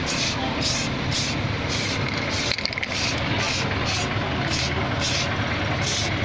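Aerosol spray can hissing out red rubber paint onto a brake caliper in short, evenly spaced bursts, about two a second, over a steady low hum.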